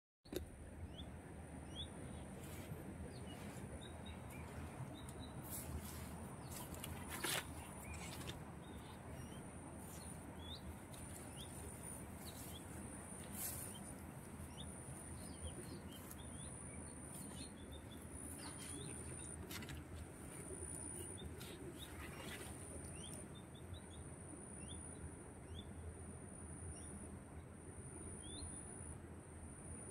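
Small birds chirping: short high chirps scattered throughout, over a continuous high-pitched whine that pulses on and off, with a few sharp clicks.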